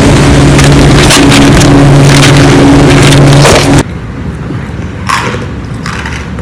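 Very loud, distorted noise with a steady low hum that cuts off suddenly about four seconds in. Then come two short crunches of a snack being bitten and chewed.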